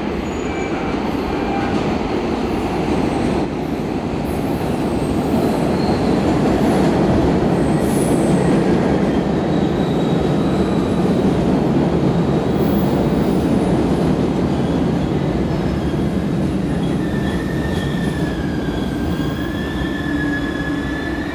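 MBTA Red Line subway train pulling into an underground station: a steady rumble of the cars running along the platform, with a wavering high wheel squeal in the last few seconds as it slows to a stop.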